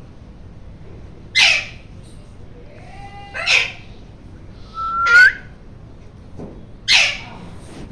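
Rose-ringed (Indian ringneck) parakeet screeching: four short, harsh squawks about every one and a half to two seconds, one of them with a short rising whistle.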